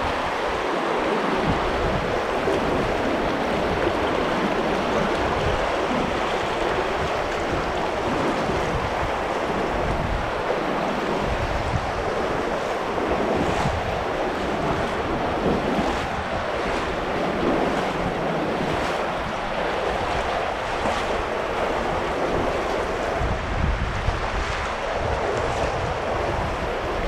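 Steady rush of an underground cave stream flowing over rocks.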